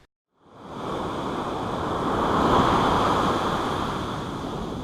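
Ocean surf: a wave rushing in, swelling to a peak and washing back out. It starts out of dead silence and ends abruptly.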